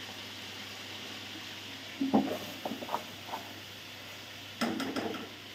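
Chicken frying in ghee in a steel karahi, a quiet steady sizzle, with the clatter and scrape of a spoon stirring a pot about two seconds in and again near the end.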